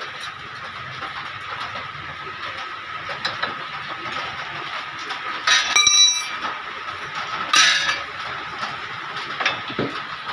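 Metal hand tools clinking and clattering against the car's steering and suspension parts, with a ringing metallic clatter about five and a half seconds in and a shorter one about two seconds later, over a steady background hiss.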